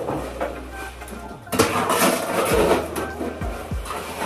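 A steel shovel scraping and turning wet cement mix in a plastic wheelbarrow, much louder from about a second and a half in, with a few dull knocks.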